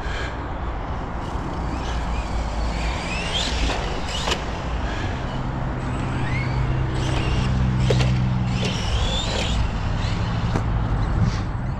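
A 1/10-scale radio-controlled monster truck running, its electric motor whining up in pitch as it accelerates several times. There are a few sharp knocks and a steady low rumble underneath.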